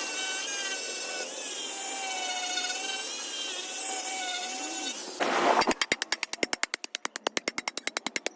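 Power tool working on a wooden handle: a steady whine that wavers in pitch for about five seconds, then a short rush of noise and a fast run of clicks, about ten a second.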